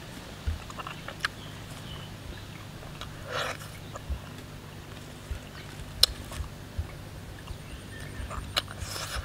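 Leaves rustling and sharp small clicks and snaps as a leafy branch laden with small wild fruits is handled and fruits are picked off and eaten. The loudest is a single sharp click about six seconds in, with brief rustles around three seconds in and near the end.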